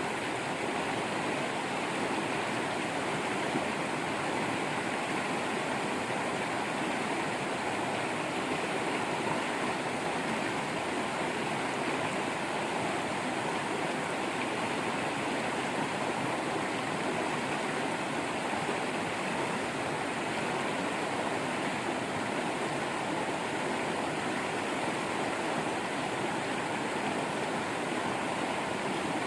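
Waterfall pouring in a steady, even rush of water.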